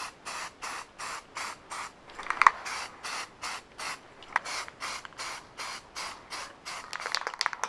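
Aerosol can of self-etching primer spraying in short hissing bursts, about three a second, as the nozzle is pressed and released over and over.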